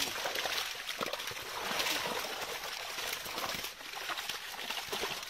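Water trickling and splashing from a wet cast net as it is handled, with an irregular patter of small slaps and drips.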